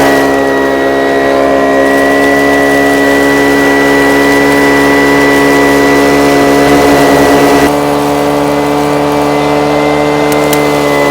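Small gasoline engine running steadily at a constant speed, with a high whine over its note, as used to power a dry washer blower or a prospecting vacuum. Its tone shifts abruptly about eight seconds in.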